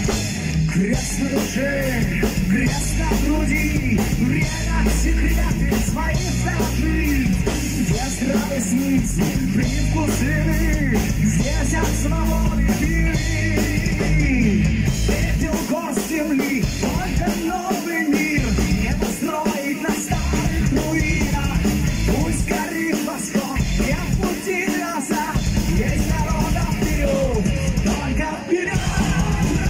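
Live heavy rock band playing: a male singer over electric guitars, bass and a drum kit. In the second half the bass and drums drop out for several short breaks while the song continues.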